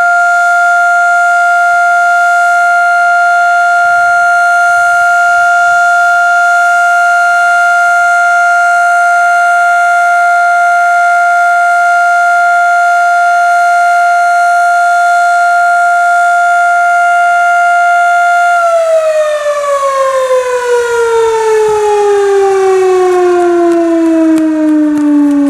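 1920s Federal Electric Type B electromechanical siren sounding at full speed: a loud, steady single tone. About three-quarters of the way through it begins winding down, its pitch falling smoothly as the rotor slows.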